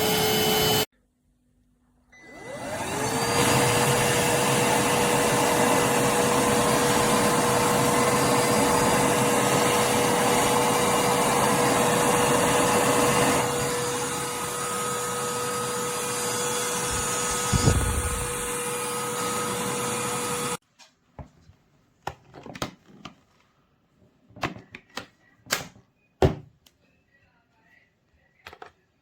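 Cordless handheld vacuum cleaner spinning up with a rising whine and running steadily, its sound shifting and growing quieter about halfway through. It cuts off abruptly, followed by a series of sharp clicks and knocks.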